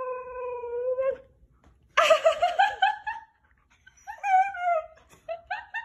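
Siberian husky vocalizing in the breed's "talking" way. A long whining call slides down in pitch and stops about a second in. A fast warbling, wavering call follows, then another short call, and a quick run of short yips near the end.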